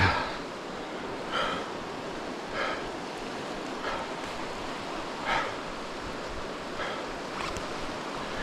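Steady rush of water, with a soft footstep on wet ground about every second and a half.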